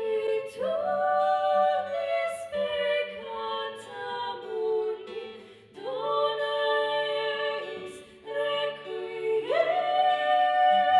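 Two women singing a slow song together, held notes in phrases with short breaks, over a strummed acoustic guitar.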